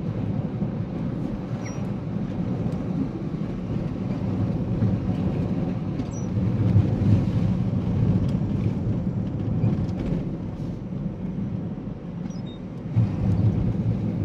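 Car cabin noise while driving: a steady low rumble of the engine and tyres on the road, swelling a little in the middle and again near the end.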